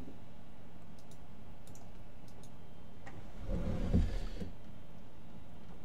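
Several faint, sharp computer mouse clicks over a steady low hiss, with a brief louder muffled noise about three and a half seconds in.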